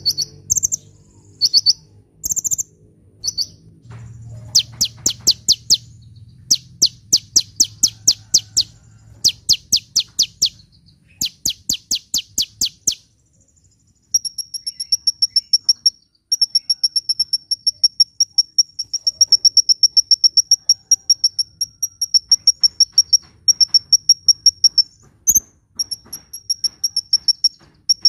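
Sunbird singing. Short high chirps give way to bursts of rapid, clicking trill notes, each burst about a second long. From about halfway through comes a long, fast, high-pitched trill of evenly repeated notes, broken by brief pauses.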